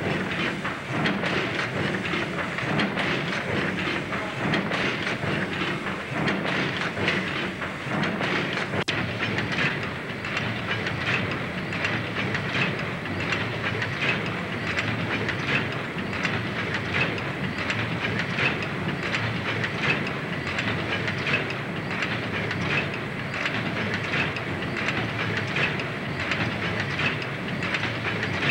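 A horizontal cross-compound steam pumping engine running, with a steady, rhythmic mechanical clatter from its moving parts and a hiss of steam.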